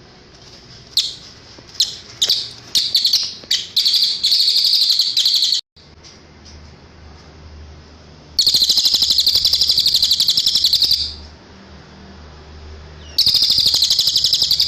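Cililin singing: a run of short high chirps that quicken into a fast trill, which breaks off abruptly, then two long rapid trills, the second near the end.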